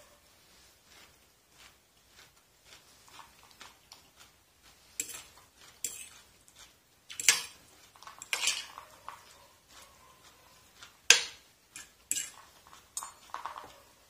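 Metal fork clinking and scraping against a plate while eating salad: an uneven scatter of small clicks, with the sharpest strikes about seven, eight and a half and eleven seconds in.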